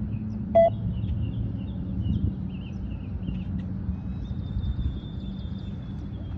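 A single short electronic beep from the beep-test recording about half a second in, signalling the end of a shuttle run. Birds chirp throughout over a steady low rumble.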